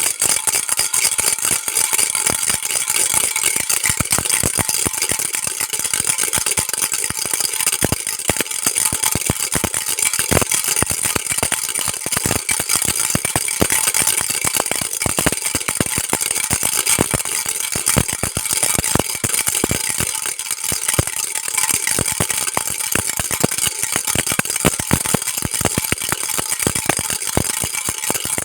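Baby rattle shaken continuously: a dense, fast stream of small clicks and clatters, bright and high-pitched, keeping an even level.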